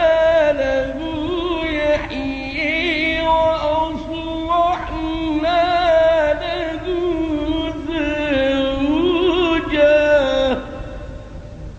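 A reciter's solo voice chanting Quranic recitation in the melodic tajweed style, drawing out long held notes with wavering ornaments, then breaking off about ten and a half seconds in.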